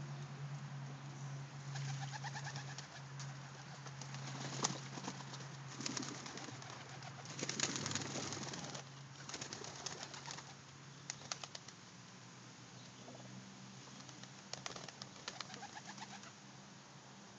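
Domestic pigeons bathing in a tub of water: irregular flurries of wing beats and splashing, loudest around a quarter and half of the way through, over low pigeon cooing.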